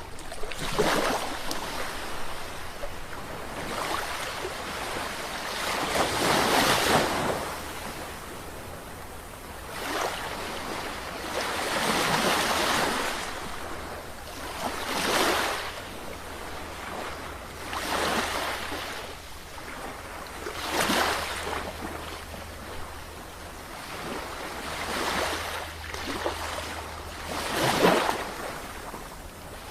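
Sea waves breaking and washing in, about ten surges that swell and fall back every two to four seconds, with the loudest near the end.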